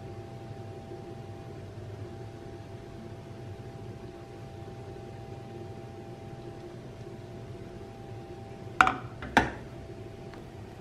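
A frying pan is set back down on a gas stove's metal grate with two sharp knocks about half a second apart near the end, over a steady hum.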